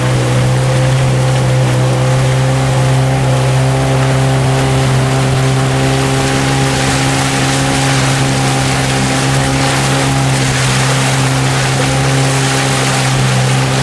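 Motorboat engine running at a steady speed, its hum holding one unchanging pitch, with the rush of water and wind over it.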